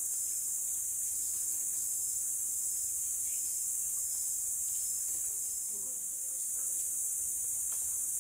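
Steady, high-pitched chorus of forest insects, an unbroken shrill drone.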